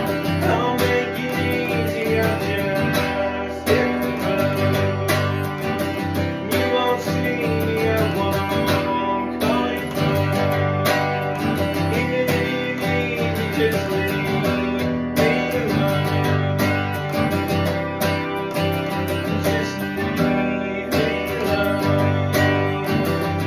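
Acoustic guitar strumming chords steadily through an instrumental stretch of the song.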